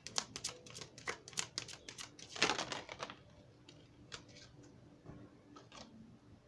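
A deck of tarot cards being shuffled by hand: quick clicking of cards for about three seconds, a louder swish about two and a half seconds in, then a few scattered clicks.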